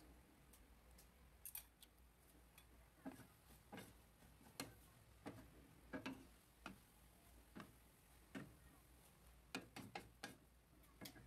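Faint, irregular clicks and taps of a cooking utensil against a wok as fried noodles are stirred and tossed.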